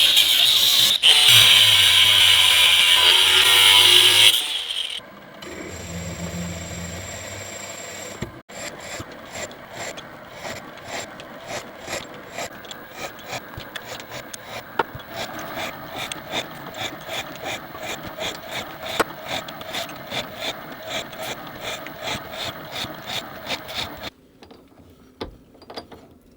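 Knifemaking shop tools: a loud power tool runs and cuts off about four seconds in, then after a short lower hum comes a long, steady series of scraping strokes, about two a second, typical of hand filing or sanding, which stop near the end.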